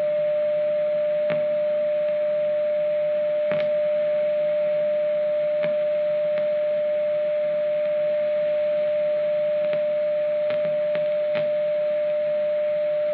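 A Grundig 2147 tube radio's loudspeaker plays one steady mid-pitched test tone, the signal generator's AM modulation received and demodulated during RF alignment, over a background hiss. A few faint clicks sound as a screwdriver works a trimmer capacitor.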